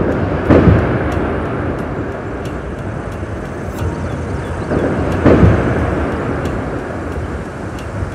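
Implosion demolition of a large industrial building: booms from the explosive charges and the rumble of the structure collapsing. A loud boom comes just after the start and another about five seconds in, with the rumble easing off near the end.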